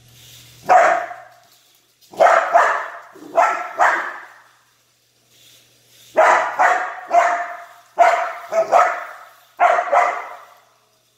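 Aussiedoodle barking in play, about a dozen short sharp barks in quick bursts of two to four with brief pauses between them.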